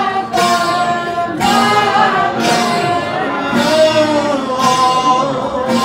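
Male devotional singing with long held and gliding notes, accompanied by plucked long-necked lutes (tambooro) that pulse about once a second.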